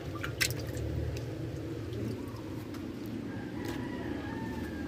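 Hand sloshing and splashing through water in a tub, over a steady low rumble, with one sharp knock about half a second in.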